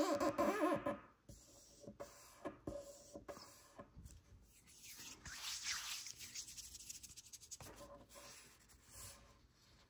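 Origami paper being folded by hand: crinkling, sharp little ticks as folds are pressed, and a longer scraping rub as a crease is run flat. It opens with a brief, loud, wavering pitched sound in the first second.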